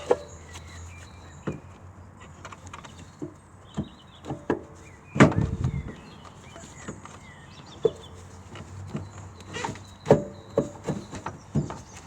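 Irregular clunks and knocks of a diesel Civic's alternator being worked and wedged out of the cramped engine bay, metal against metal and hoses, with one heavy thud about five seconds in and a quick run of knocks near the end.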